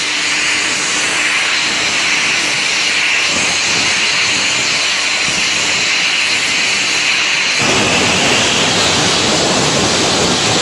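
CNC cutting torch, most likely a plasma torch, running with a loud, steady hiss as it cuts. About two-thirds of the way in, a deeper rushing noise joins the hiss and holds.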